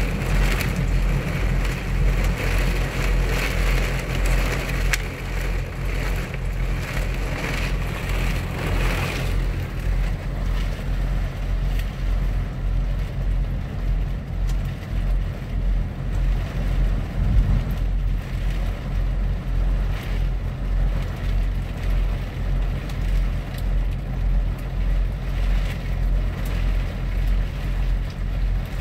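Heavy rain falling on the windshield and roof of a Kenworth truck cab, heard from inside, over the steady idle of the truck's diesel engine. The rain is heavier for the first nine seconds or so, then eases; a single low thump comes about two-thirds of the way through.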